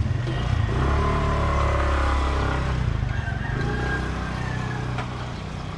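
Motor vehicle engine running close by in busy street traffic, loudest over the first few seconds as it passes, then fading.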